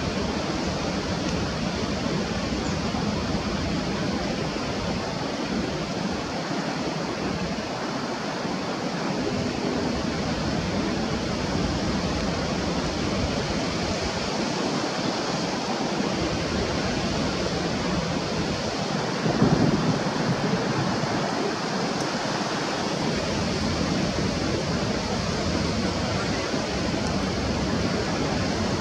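Steady rushing noise of flowing water, with a brief louder swell about two-thirds of the way in.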